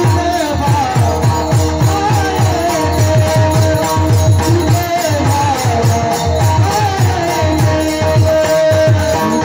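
Varkari kirtan music: rapid drum strokes with a falling bass, and a rattling jingle of cymbals, over a steady drone and a wavering melody line.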